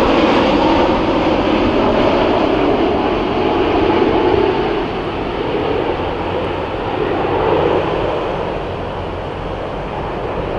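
Jet noise from a Boeing 787-9's Rolls-Royce Trent 1000 turbofans as the airliner passes low on final approach: a steady rushing roar that eases off a little about halfway through as the aircraft moves away.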